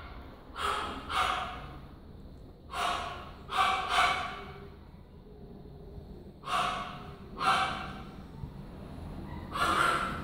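A person breathing heavily close to the microphone: loud, noisy breaths in and out, mostly in pairs, about every three seconds.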